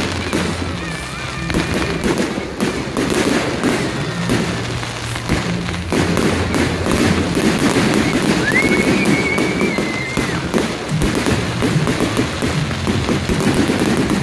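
Fireworks display: aerial shells bursting in rapid cracks and bangs with crackling stars. About eight seconds in, a whistling firework rises quickly and then holds its high note for about a second and a half. Music plays underneath.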